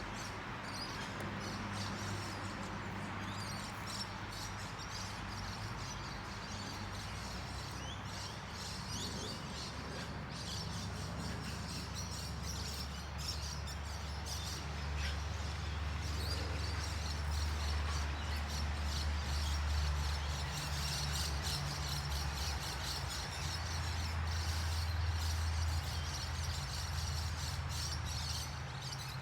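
Outdoor ambience of birds chirping faintly over a steady low rumble.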